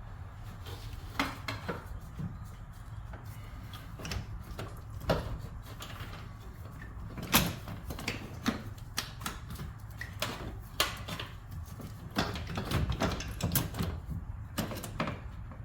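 Irregular clicks and knocks of hand tools and metal and plastic engine parts being handled while the turbocharger is taken apart, over a steady low hum.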